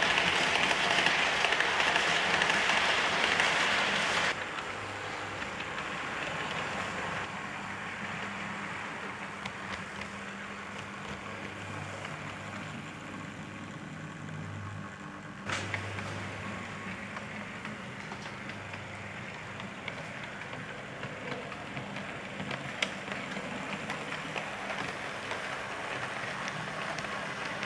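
Model railway train running along the layout track, a Bachmann model of diesel No. 10000 hauling Pullman coaches: the wheels rattle and click along the rails over a low steady hum. It is loudest for the first four seconds, drops off suddenly, then steps back up suddenly about fifteen seconds in.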